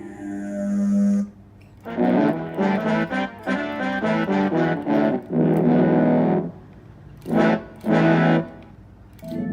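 Roland GR-20 guitar synthesizer played through a distorted, guitar-like patch: a held note, then a quick run of notes ending on a sustained one, and two short stabs near the end. Recorded through a phone's microphone.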